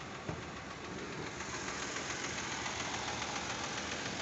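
Fiat Argo's Firefly 1.0 three-cylinder engine idling hot, with a fast, even ticking from the valvetrain that the owner calls lifter (tappet) noise and finds odd, since this engine has hydraulic lifters. It grows a little louder after about a second and a half.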